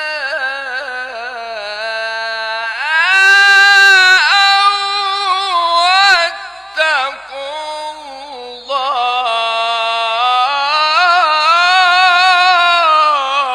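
A male Quran reciter chanting in the melodic tajwid style, holding long, ornamented notes on drawn-out vowels in two long phrases with a brief break between them.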